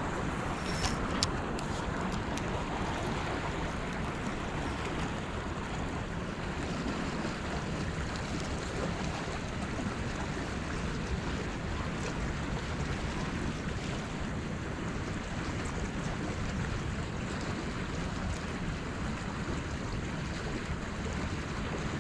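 Steady rush of flowing river water mixed with wind on the microphone, with a couple of faint clicks about a second in.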